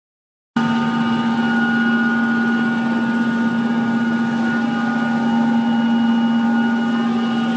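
A vehicle engine running steadily: an even drone with a constant low hum and a few fainter steady higher tones, starting suddenly about half a second in.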